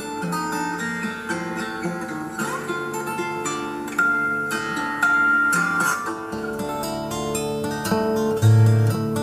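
Fingerstyle acoustic guitar playing a gamelan-style melody of plucked, ringing notes. A bass line comes in about six seconds in.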